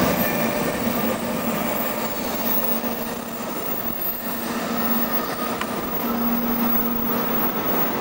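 N700-series Shinkansen pulling out: the rush of its last car going past, fading as the train draws away, over a faint steady hum.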